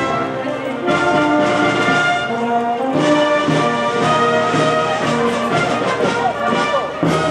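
Brass band playing a melody in several parts.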